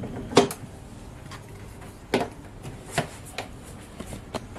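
Hard plastic knocks and clicks as a countertop blender's jar is seated on its motor base and its lid is pressed on. The loudest knock comes about half a second in, followed by a handful of lighter clicks.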